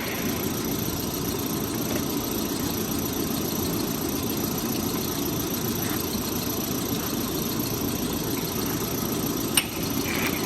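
A steady, unchanging mechanical running noise, low and even, with one sharp click about nine and a half seconds in.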